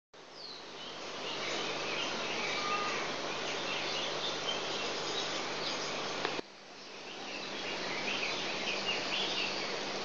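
Small birds chirping over a steady hiss and a low hum. The sound drops out abruptly about six seconds in, then fades back up.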